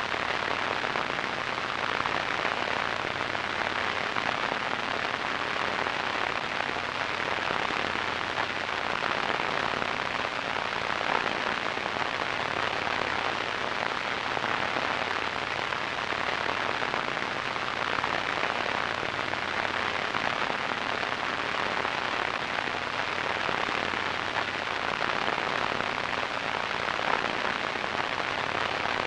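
Radio static: a steady, unchanging hiss, fullest in the middle range with little deep bass or high treble.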